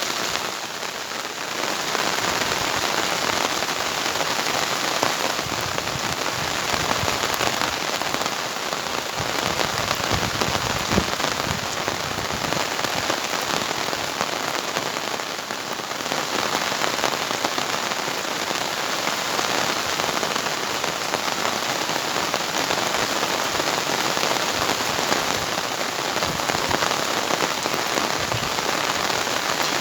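Heavy rain pouring down, a dense steady hiss of drops hitting surfaces.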